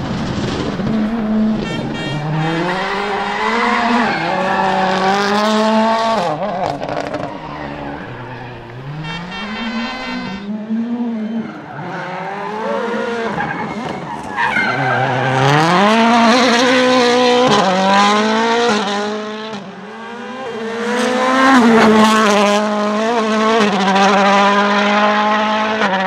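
Toyota Yaris WRC rally cars' turbocharged four-cylinder engines at full throttle, revving up through the gears and dropping at each shift or lift over several passes, with a few short crackles. The engine note holds steady near the end.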